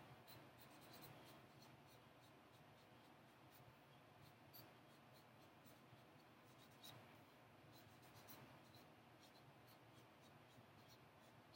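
Faint scratching and squeaking of a felt-tip marker writing letters on a paper flip-chart pad, in many small uneven strokes and ticks.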